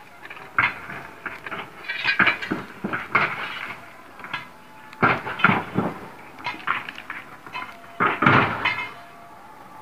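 A long steel pry bar clanking and scraping against rock as it levers at a broken quarry face, in irregular clusters of knocks and clatter with a short metallic ring.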